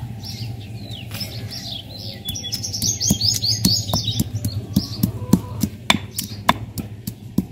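Birds chirping and twittering, in a quick run of calls about halfway through, over the sharp knocks of a stone pestle pounding onion and chilli flakes in a stone mortar, about two knocks a second in the second half. A low steady hum runs underneath.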